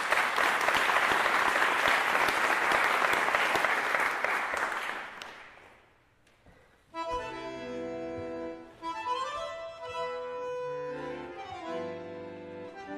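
Audience applause that fades out about five seconds in; after a short pause, an accordion-type free-reed instrument begins playing, with held notes and chords.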